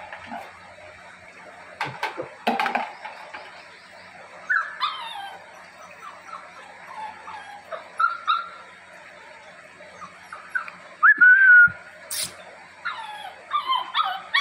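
Beagle puppies whining and yipping in short, high, sliding calls, with one longer whine about three-quarters through. A few sharp knocks come in between, including a loud one just after the long whine.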